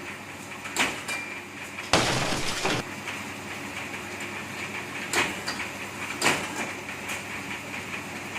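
Bamboo satay-skewer machine running with a steady hum, broken by a few sharp clacks and a short loud rasp about two seconds in, typical of bamboo being pushed through the cutting die.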